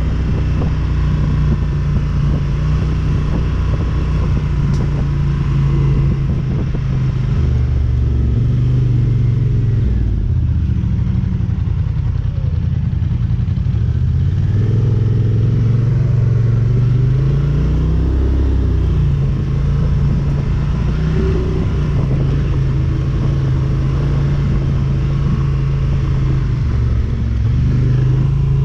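ATV engine running under changing throttle, its pitch dropping and climbing again several times as it slows and speeds up.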